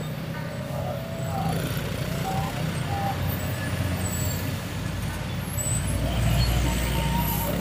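Motorcycle riding in road traffic: engine running steadily under a constant road-noise hiss, with the low rumble growing louder near the end.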